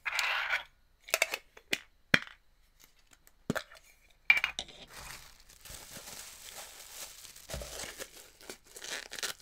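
Plastic bag crinkling as a bagged Funko Soda figure is handled at an opened metal can, continuous over the last five seconds or so. Before it come a few sharp clicks and knocks of the can and its contents.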